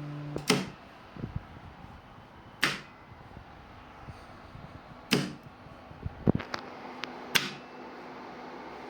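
Electronic equipment under test after a board repair: a low electrical hum cuts off about half a second in, then four loud sharp clicks come about every two and a half seconds, with a few smaller clicks between them. A fainter hum starts again later on.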